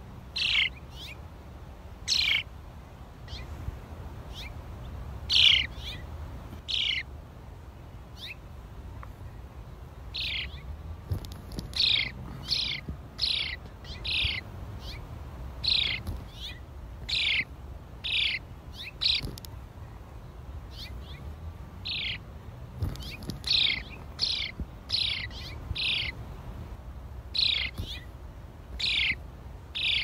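A small songbird giving single sharp chirps, each falling quickly in pitch. The chirps are spaced a few seconds apart at first, then come about once a second from about ten seconds in, over a low steady rumble.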